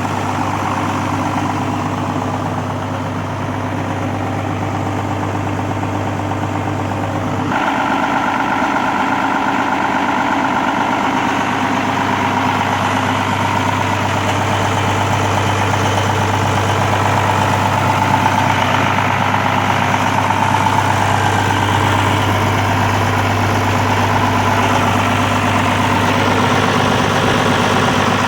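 1998 John Deere 7405 tractor's diesel engine idling steadily. About a quarter of the way in the sound turns suddenly louder and brighter, then holds steady again.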